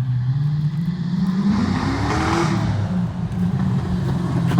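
A car engine with an aggressive cam, freshly fitted with a new exhaust, revs up once and drops back to a rough, pulsing idle. The rev peaks about two and a half seconds in.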